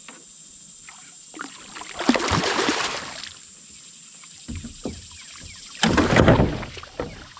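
A large hooked bass thrashing and splashing at the surface beside the kayak as it is played on the rod, in two loud bursts about two seconds in and about six seconds in, with smaller splashes between.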